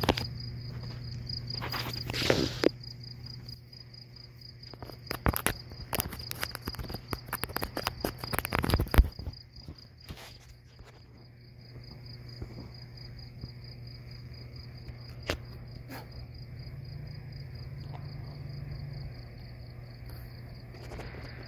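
Crickets chirping in a steady, fast pulsing trill over a low, steady hum. A run of sharp clicks and knocks stands out between about two and nine seconds in, loudest near the end of that run.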